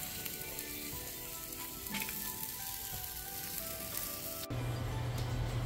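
Chicken skin sizzling on an outdoor grill. About four and a half seconds in it cuts off abruptly to a steady low hum.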